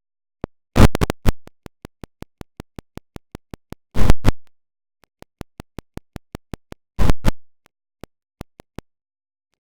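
Android alarm sound chopped into a YTPMV remix: very short snippets repeated as a rhythmic train of clicks about five a second, with louder stuttering bursts about every three seconds.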